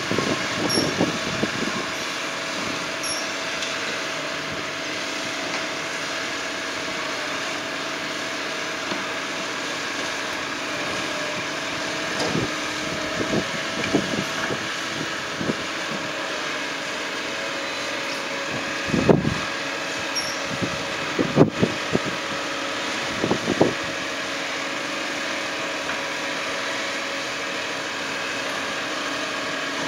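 A CCC Labrie Automizer right-hand side-loader garbage truck running with a steady engine hum. Clusters of bangs and knocks come a little before halfway and again about two-thirds through, from its cart-pickup work.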